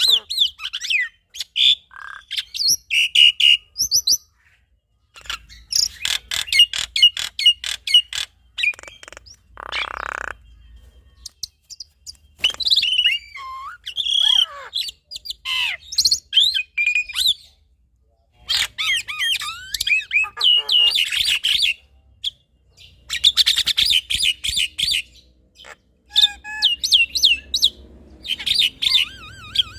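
A male black-winged myna (jalak putih) and a female Javan myna (jalak kebo) singing in a duet. Bursts of fast chattering alternate with looping whistled notes and harsh squawks, broken by brief pauses.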